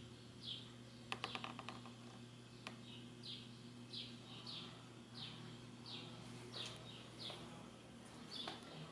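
Tron JatTron pedestal fan's electric motor humming steadily. Short, high, falling chirps repeat over it every half to three-quarters of a second, with a quick cluster of clicks about a second in.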